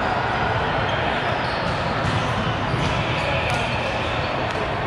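Indoor volleyball game ambience: a volleyball thudding and bouncing, with the voices of players in the background.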